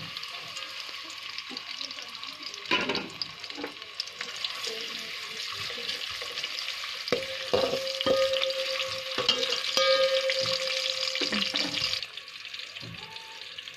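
Sliced onions sizzling as they fry in hot oil in a metal pot, with a few knocks of a spoon against the pot. A faint steady tone sounds for a few seconds in the middle, and the sizzle drops away sharply near the end.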